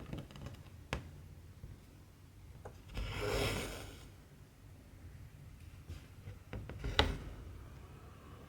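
Hand cross-stitching on fabric: small clicks and rubbing of needle, thread and cloth, with a longer rustle about three seconds in and a sharp click about seven seconds in.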